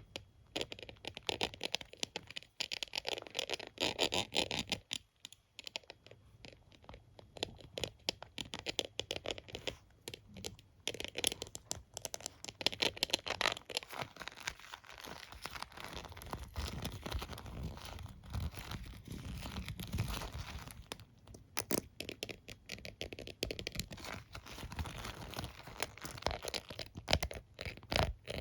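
Bristles of a hairbrush and teeth of a comb being rubbed and scratched close to the microphone: a dense run of rapid scratchy crackles, with short lulls about five and ten seconds in.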